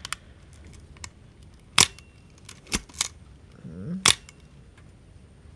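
Nikon F 35mm SLR being worked by hand: its mechanical focal-plane shutter fires with two loud sharp clicks, about two seconds in and about four seconds in, with smaller clicks of the camera's mechanism in between.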